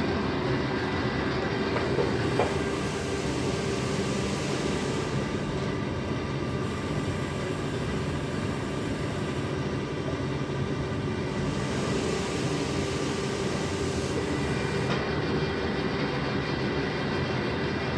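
20-litre PET jar washing machine running: a steady mechanical drone with several whining tones, and a hiss that comes in and drops out a few times.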